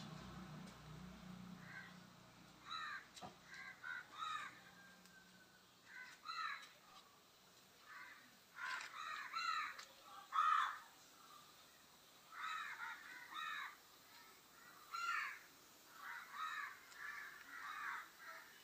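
Crows cawing again and again, in short runs of two to four calls. A low hum fades out in the first few seconds.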